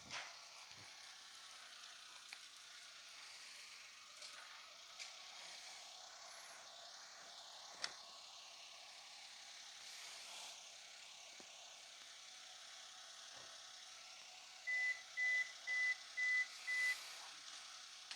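A steady hiss with a few faint clicks. Near the end, five short high electronic beeps, evenly spaced about half a second apart, then they stop.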